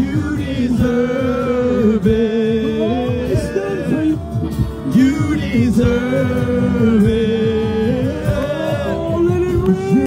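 Live gospel worship music: singing over a steady musical accompaniment.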